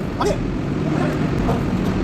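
Heavy vehicle engine running steadily with a low rumble, with a short falling yelp-like call just after the start.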